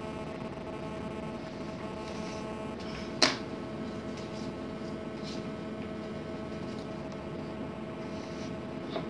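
Steady electrical hum made of several even, unchanging tones, with one sharp click about three seconds in and a faint tick near the end.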